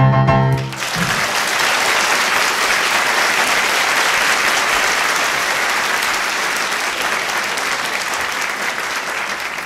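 The song's final chord, cut off about a second in, followed by an audience applauding steadily.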